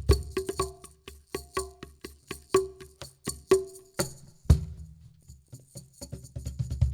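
Percussion played on homemade instruments built from discarded materials: a steady beat of pitched, woody knocks over low thumps, with a rattle on top. There is one heavy low hit about four and a half seconds in, and near the end a fast, busier run of low thumps builds up.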